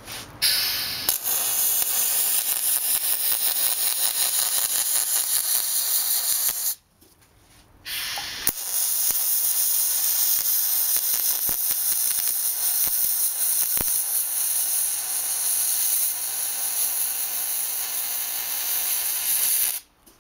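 Arc welding on an aluminum wheel. The arc runs steadily for about seven seconds, stops for about a second, then runs again for about twelve seconds and cuts off just before the end.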